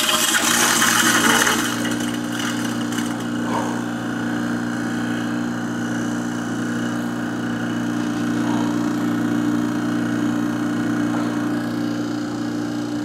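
Kitchen garbage disposal running with a steady motor hum, with a louder rushing noise over the first second and a half.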